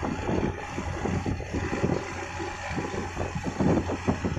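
Steady low drone of a ship's engine, with gusts of wind buffeting the microphone in uneven surges.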